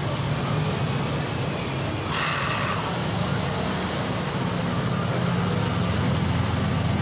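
Steady low mechanical hum, with a brief hiss about two seconds in.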